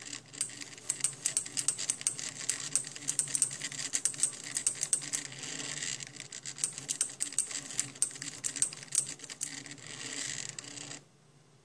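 Homemade mini SCARA pen plotter writing with a marker: its stepper motors whine and hum while rapid, irregular clicks and ticks come from the arm and pen. The motion stops suddenly near the end, once the writing is done.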